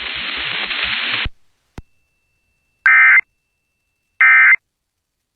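NOAA Weather Radio hiss that cuts off about a second in, then a click and two short warbling bursts of the EAS/SAME end-of-message code (NNNN), each about a third of a second long, the repeats signalling that the warning broadcast is over.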